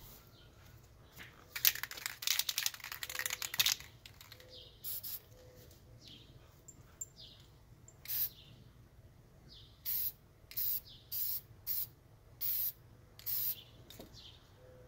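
Aerosol spray paint can shaken, the mixing ball rattling hard for about two seconds, then sprayed in a run of short hissing bursts, about eight quick puffs.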